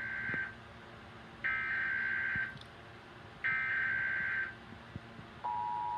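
Emergency Alert System test header: three bursts of buzzing digital data tones (the SAME code that carries the alert's details), each about a second long and two seconds apart, with the first already under way. About half a second before the end, the steady two-tone EAS attention signal begins.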